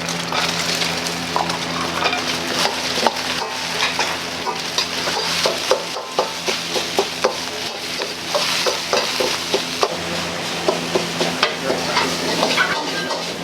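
Fried rice being stir-fried in a wok: a steady sizzle with many quick, sharp clanks of the ladle against the pan, over a steady low hum from the kitchen.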